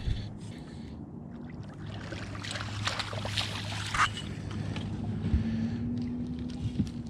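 A boat's motor holds a steady low hum while a hooked walleye is landed, with splashing and clatter in the middle as the fish comes to the net.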